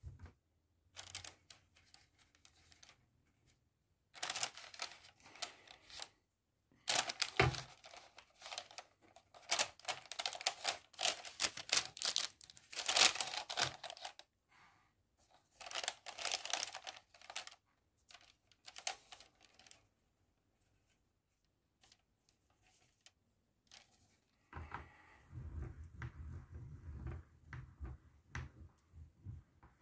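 Hand-cranked metal meat grinder with a spritz cookie attachment being turned, its crank and auger clicking rapidly in bursts of a few seconds as dough is pressed out through the nozzle. Near the end the sound turns duller and lower.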